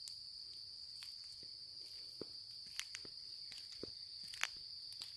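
Insects trilling steadily at one high pitch, with footsteps and small crunches on the trail scattered through it and one sharper snap near the end.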